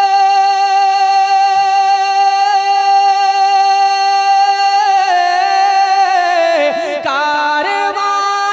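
A male naat reciter sings unaccompanied into a microphone and holds one long, steady note. About five seconds in, the note drops in pitch and breaks into a wavering melismatic run.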